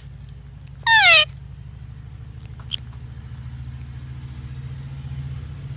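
A single animal call about a second in, sliding down in pitch over about a third of a second, over a steady low hum.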